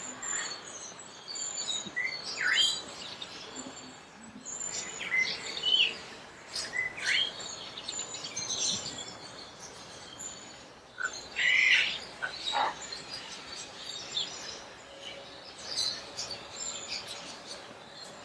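Parrots chirping and squawking: a steady scatter of short, sharp calls and quick sweeping chirps, with a louder cluster of squawks about twelve seconds in.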